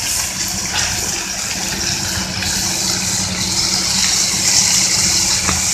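Steak frying in a skillet of bubbling butter and white-wine sauce: a steady, loud sizzle, over a steady low machine hum.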